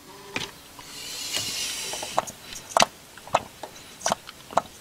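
Mouth suction on a loose vacuum pipe to a distributor's vacuum advance unit, testing that the diaphragm pulls the breaker plate. A breathy hiss of air drawn through the pipe lasts about a second and a half. It is followed by about five sharp clicks, roughly one every half second.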